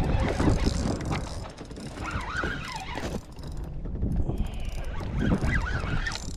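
Fishing reel being cranked, its gears clicking, while a fish is fought on the line.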